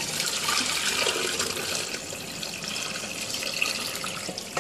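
Water pouring from a stainless steel pot through a fine-mesh strainer into a sink, splashing steadily as cooked glass noodles are drained.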